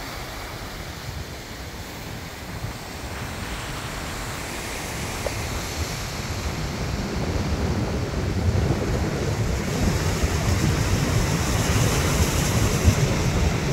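Surf breaking and washing onto a pebble beach, with wind buffeting the microphone as a low rumble. Both grow louder through the second half.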